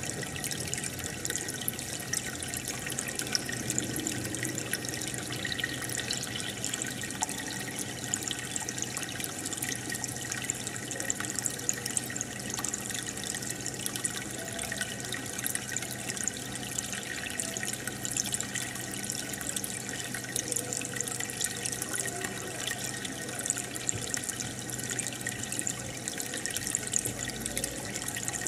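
Steady bubbling and trickling of water in a home goldfish aquarium, with many tiny crackling splashes and a faint low hum underneath.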